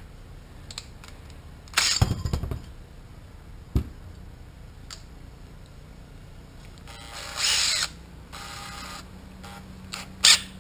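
Cordless drill run in short bursts while a 1/8-inch bit is fitted into its keyless chuck, with a clatter of tools being handled and a click before it.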